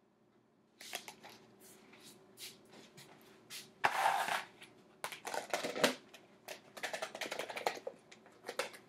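Plastic food containers being handled: a run of clicks, taps and short rattles starting about a second in, as seasoning mix is shaken from a plastic cup onto chicken pieces and the lidded container is shaken to coat them.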